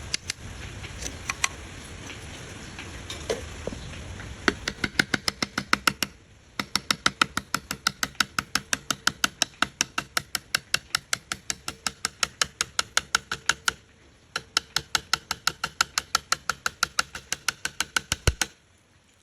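A long run of sharp, evenly spaced taps on wood, about four a second, with short breaks about six and fourteen seconds in. Before it come a few seconds of softer steady noise with scattered knocks.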